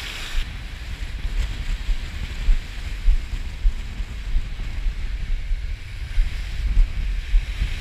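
Strong wind gusting across the microphone, rumbling unevenly, over the steady wash of small waves breaking and running up a sand beach.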